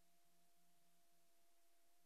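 Near silence: an empty soundtrack holding only faint hiss and a faint steady hum.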